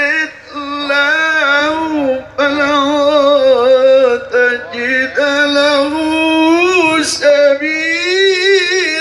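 A male qari recites the Quran in the melodic tilawah style through outdoor loudspeakers. He holds long, wavering, ornamented notes in phrases broken by short breaths, and his pitch climbs higher in the last seconds. There is a brief sharp noise about seven seconds in.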